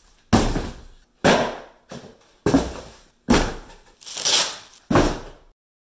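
Cardboard shipping boxes tossed onto a tile floor: a series of about seven loud thuds, roughly one a second, the one near four seconds in drawn out with a scraping hiss.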